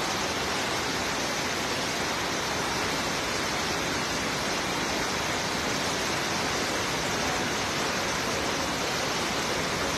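Heavy tropical rain falling steadily, a dense even rush of noise with no breaks.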